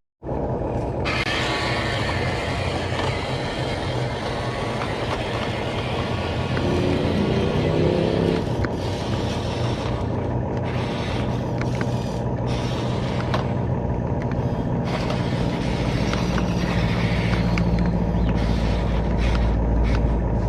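Radio-controlled 1/20 scale model bulldozer running steadily, with a brief rising whine about seven seconds in.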